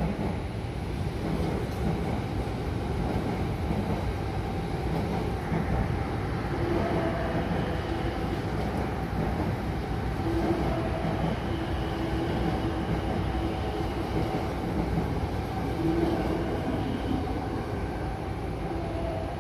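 Steady low rumble of a running vehicle, with faint high tones coming and going.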